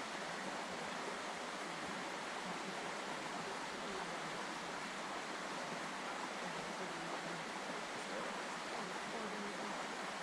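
River water rushing, a steady, unbroken hiss.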